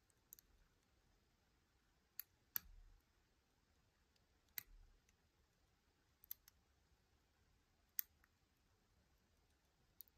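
Small sharp clicks of a hook pick working the pins of Harry Bow's Chicane, a brass challenge lock held under tension: about eight separate clicks spread over ten seconds, the loudest around two and a half and eight seconds in.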